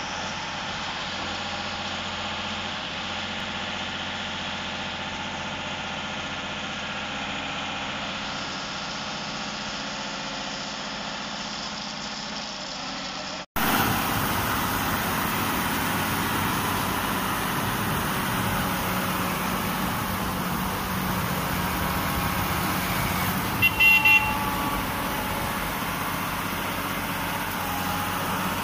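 Engines of an SQRS/PQRS track-relaying machine and its portal gantry cranes running steadily, louder from about halfway through. About two-thirds of the way through comes a quick burst of three short horn beeps.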